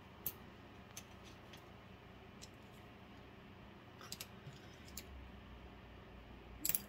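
Faint, scattered small clicks and taps of makeup tools being handled, a mascara tube and wand and a makeup brush, over quiet room tone, with a short cluster of clicks near the end.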